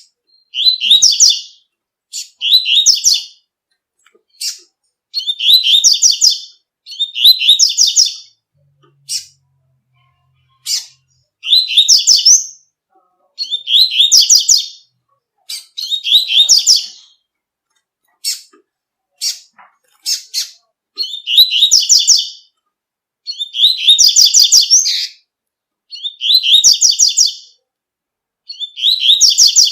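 Double-collared seedeater (coleiro) singing its 'tui-tui' song. It repeats high phrases of rapid notes, each about a second long, every couple of seconds, with short single call notes in between.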